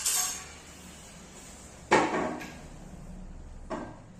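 Wooden bed-frame parts knocking against each other and the floor as they are handled. There are irregular knocks: one at the start, the loudest about two seconds in with a short ring, a smaller one right after, and a light one near the end.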